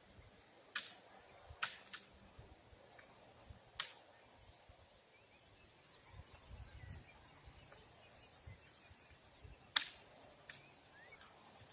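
Quiet outdoor background with a few sharp clicks or snaps, four in all, the loudest near the end, and faint bird chirps.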